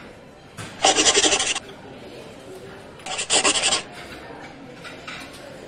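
Two short scratchy rasps, each under a second and about two seconds apart: a scribbling sound effect.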